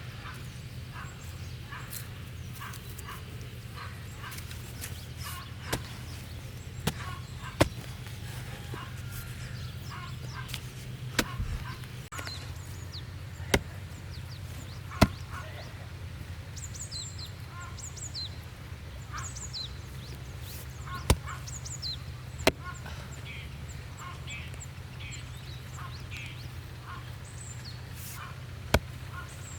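About a dozen sharp, single chopping knocks, spaced irregularly a second or several seconds apart, over a steady low hum. Short high bird chirps come in over the middle of the stretch.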